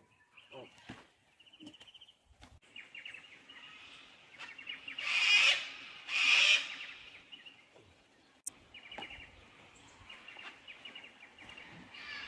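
Birds calling in the bush with rapid, repeated trills, and two loud harsh bursts of noise, each about a second long, around five and six seconds in.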